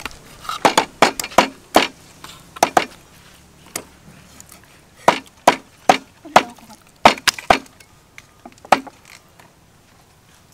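Cleaver chopping raw meat on a wooden chopping block: a string of sharp, irregularly spaced chops that stop near the end.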